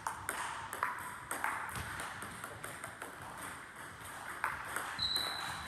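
Table tennis ball being played in a rally: sharp irregular clicks of the ball against rackets and table, several close together at first, then a pause and a few more hits, one followed by a short high ringing ping near the end.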